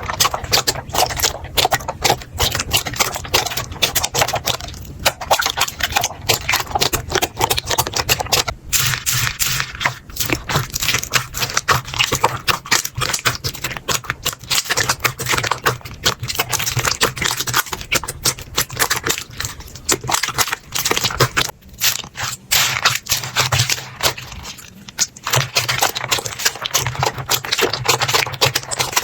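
Slime being squeezed, pressed and poked by hand, giving dense, rapid crackling and clicking pops with scraping, in short bursts that pause briefly now and then.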